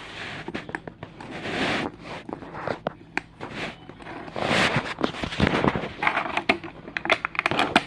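Plastic toy packaging crinkling and rustling as it is handled, with many sharp clicks and taps of small plastic pieces, busiest near the end.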